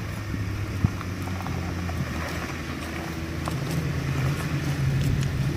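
Jeep Wrangler engine running at low crawling revs as it climbs over rocks, a low steady hum that rises a little in pitch and level past the middle. A few light clicks sound over it.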